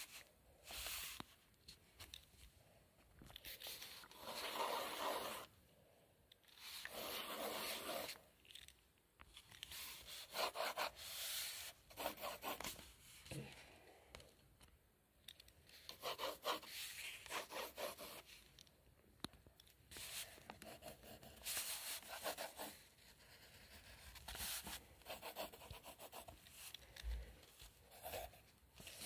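Pencil scratching on paper in a series of sketching strokes, each about half a second to a second and a half long, with short pauses between.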